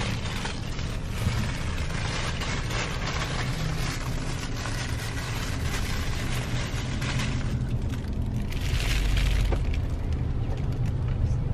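Steady road and engine noise heard inside a moving car's cabin, swelling louder for a moment about eight seconds in.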